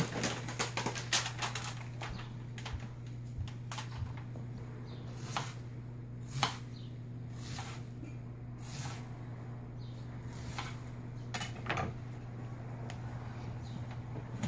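Kitchen handling sounds: a knife slicing a tomato against a plastic cutting board and aluminium foil crinkling as slices are laid on it, heard as scattered soft taps and short rustles, the loudest about six and a half seconds in. A steady low hum runs underneath.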